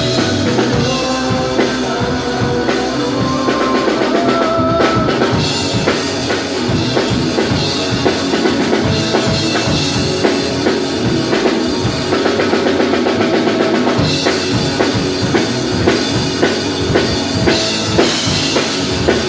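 Rock band playing live, with the drum kit to the fore: a steady beat of bass drum and snare. A line of held notes rides over the drums in the first five seconds, then the drums carry on under the rest of the band.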